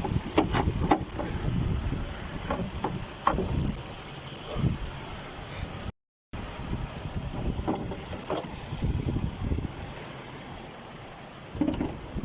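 Kia Mohave engine idling roughly and unevenly with a cylinder 5 misfire, shaking the engine.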